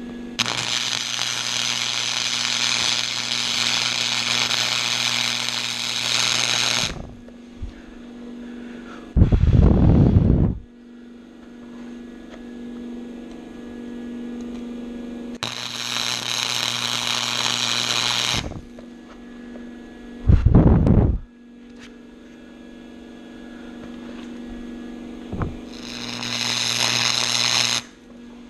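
Flux-core wire-feed welder arc sizzling in three runs, the first about six seconds long and the next two shorter, while welding a tab onto a steel bumper tube that is not clean bare metal, which gives lots of spatter. Between the runs come two loud, low, muffled bumps, with a steady electrical hum underneath throughout.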